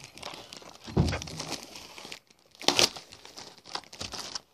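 Plastic packaging crinkling and tearing as it is pulled open by hand: a dense run of irregular crackles, with a thump about a second in and a sharp, louder crackle near the middle.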